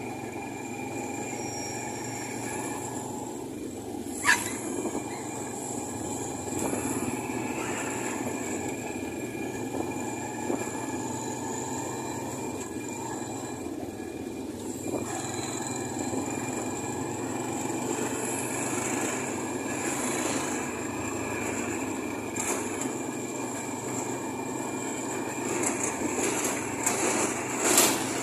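Steady running noise of a small vehicle on the move: engine and road rumble, with a sharp click about four seconds in and another near the end.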